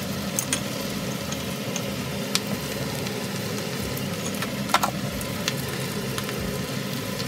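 Leafy greens sizzling as they are stir-fried in a hot wok, a steady hiss. A few sharp clicks of the cooking utensil against the pan come through, the loudest a little under five seconds in.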